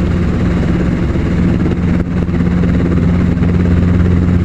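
Helicopter engine and rotor running steadily, heard from inside the cabin as a loud, even drone with a low hum.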